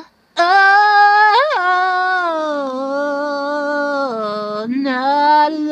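A solo voice, unaccompanied and without pitch correction, holding a long wordless 'oh' melisma that wavers in pitch, with a quick upward scoop about one and a half seconds in and a sag around four seconds in.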